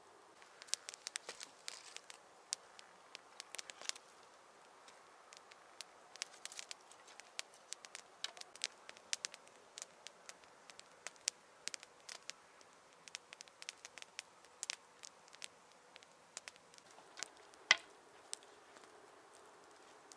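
Wood fire crackling: irregular sharp pops and snaps, a few a second, with one louder pop near the end.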